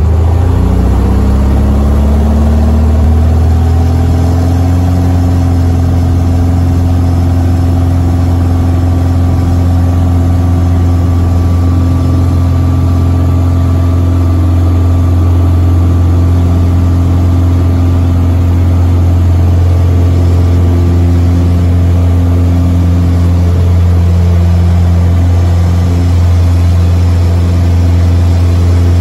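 Single-engine light aircraft's piston engine and propeller, heard inside the cockpit: the pitch rises over the first few seconds as power comes up for take-off, then holds steady at full power through the take-off roll.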